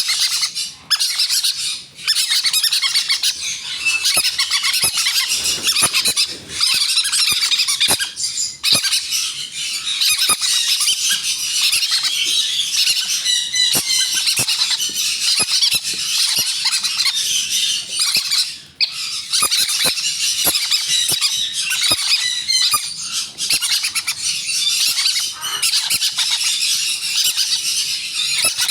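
Green-cheeked conure chicks squawking without let-up: the harsh, insistent food-begging calls of hand-fed chicks.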